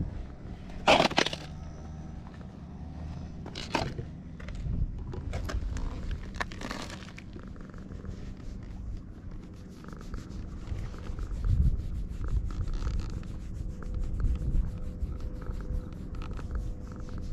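Rubbing and scraping of a hand stroking a tabby cat's fur close to the camera microphone over a low rumble, with a few sharper scrapes in the first seven seconds and softer rubbing after.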